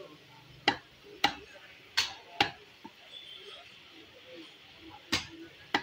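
Butcher's cleaver chopping beef on a wooden log block: about six sharp chops, four in quick succession, then a pause of nearly three seconds before two more near the end.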